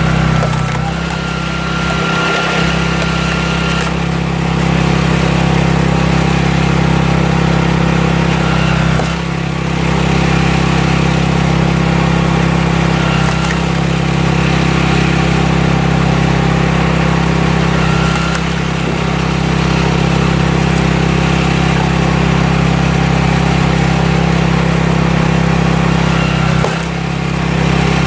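Small engine of a walk-behind cultivator running steadily while it drives a firewood splitter. The engine note dips briefly about a second in, around nine seconds in and near the end.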